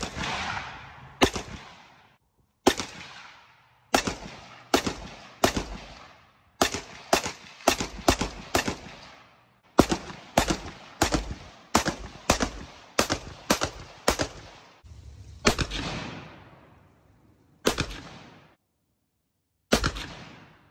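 AR-15 rifle fired semi-automatically in a long string of about two dozen shots. Some come in quick runs of three or four a second, others one to two seconds apart, and each shot trails off in an echo.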